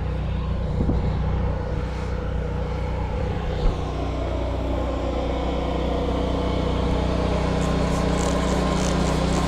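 Pressure washer running steadily, its motor humming low beneath the hiss of the water jet. There is a single short thump about a third of the way in.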